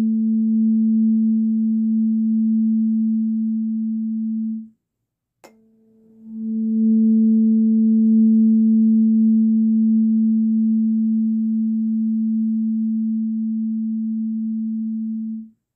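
A 221.23 Hz tuning fork rings with a steady low hum. The hum cuts off about five seconds in and a click follows. The tone then swells back and rings steadily until it stops just before the end.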